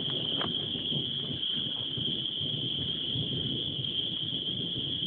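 Steady high-pitched chorus of crickets over a low, uneven rumble.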